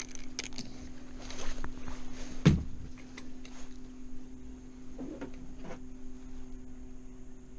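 Bowfishing line being hand-pulled in from a kayak: faint rubbing and small clicks of handling, with one dull thump about two and a half seconds in, over a steady low hum.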